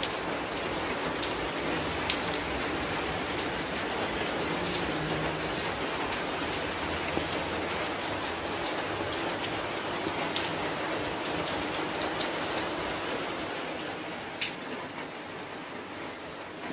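Steady rain falling, with scattered sharp drip ticks.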